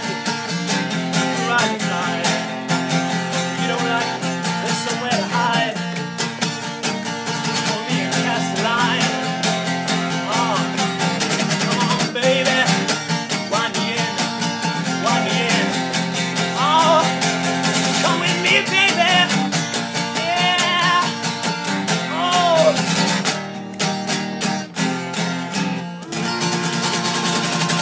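Steel-string acoustic guitar strummed in a steady chord pattern while a man sings the melody over it with vibrato.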